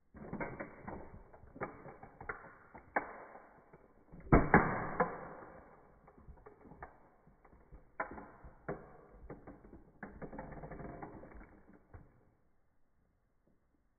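Toy Porsche 911 Carrera model car creaking and cracking as a high-heeled shoe presses down on its roof: a run of clicks and snaps, loudest about four and a half seconds in, with a grinding stretch near the end before it stops.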